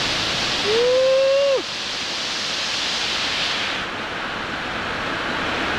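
Water released through opened reservoir floodgates rushing down a concrete spillway chute in a steady roar of noise. About a second in, a brief pitched whistle-like tone rises slightly, then drops away.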